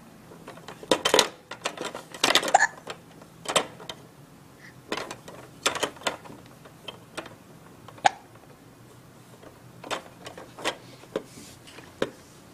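A baby hiccuping at irregular intervals, about a dozen short sharp sounds, mixed with clicks and clatter from the plastic toys of an Evenflo ExerSaucer activity seat.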